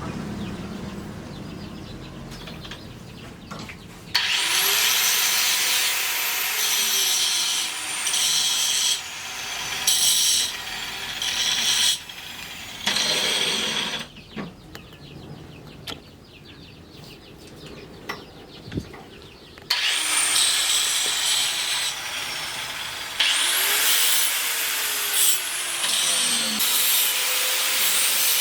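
Handheld electric power tool working wood. It runs in two stretches of several seconds each, with a pitch that glides up as it spins up and then down, and a quieter gap with a few clicks between the runs.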